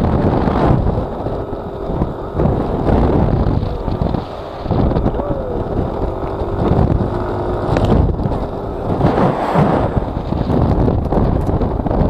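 Wind buffeting the microphone of a camera riding on a moving Yamaha NMAX scooter, a loud rumble that swells and drops in irregular gusts, with the scooter's engine running beneath it.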